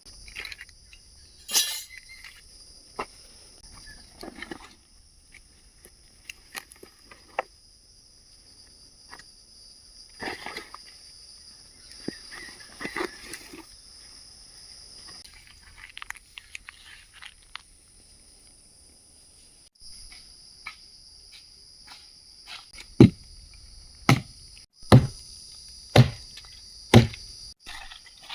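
Steady high-pitched drone of forest insects, with small clicks and handling noises of camp work; near the end, five sharp, loud knocks about a second apart.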